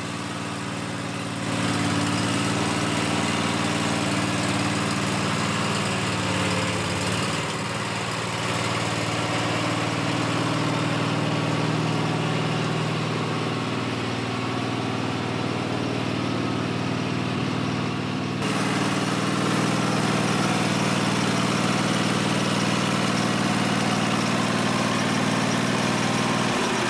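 MTD Gold riding lawn tractor's engine running steadily as the tractor is driven up loading ramps onto a trailer, its note shifting slightly a few times.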